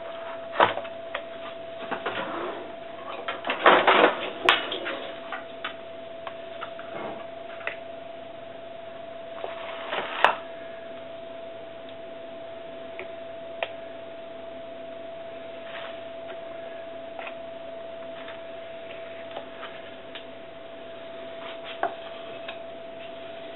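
Kitchen handling noises: a metal offset spatula and a foil-lined cardboard box mould knocked and scraped while chocolate is spread, a scatter of sharp clicks and knocks, the loudest bunch about four seconds in and another about ten seconds in. A steady hum runs underneath.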